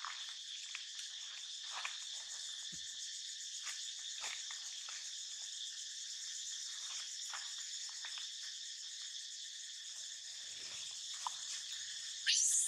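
A steady insect chorus, high and even, with a few faint rustles. Near the end a baby macaque breaks into a loud, high-pitched scream.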